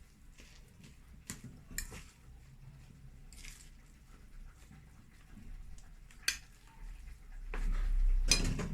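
Kitchen handling sounds while seasoning a bowl of mashed potatoes: a few light clicks and taps of spice containers and utensils, then a louder dull bump with a sharp click near the end.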